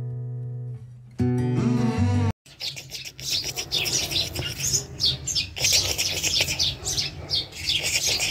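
Guitar music plays and cuts off about two seconds in; then many small birds are chirping busily, with quick overlapping high chirps.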